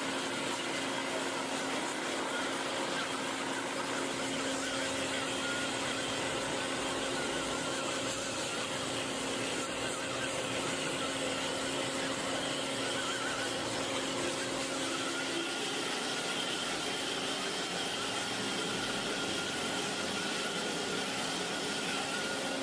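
A machine running steadily, a constant noise with a steady whine held throughout.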